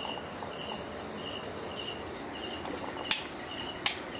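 An insect chirping steadily: a short, high, buzzy chirp repeating about every half second over a faint hiss. Two sharp clicks a little under a second apart near the end are the loudest sounds.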